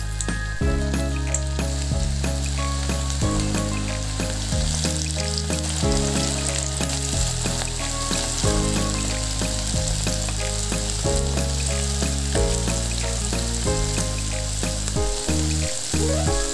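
Battered squid rings sizzling and bubbling as they deep-fry in hot oil. Background music with a run of low held notes plays along.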